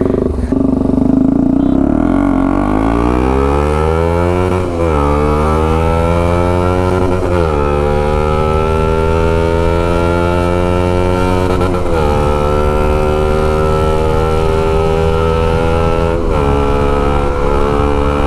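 KTM Duke 200's single-cylinder engine through a loud open aftermarket full exhaust, accelerating hard from low revs: the pitch climbs, drops at four upshifts, and then holds fairly level as the bike runs in the higher gears.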